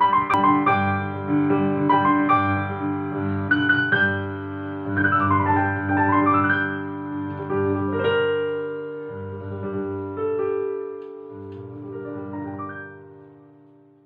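Solo piano background music: sustained chords and melody notes, with a quick downward and then upward run about five seconds in, fading out near the end.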